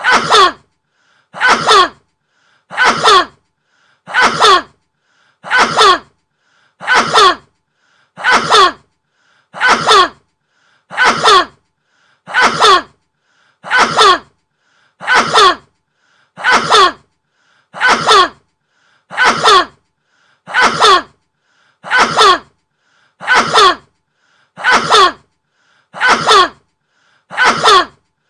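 A person's sneeze, the same one repeated over and over at an even pace, about every second and a half, like a loop. Each is a loud sneeze whose pitch drops as it goes.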